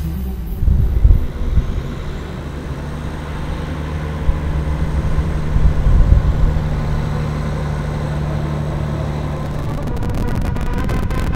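Road vehicle running on the highway: a steady low engine drone with road rumble, and louder surges of rumble about a second in and again around six seconds in.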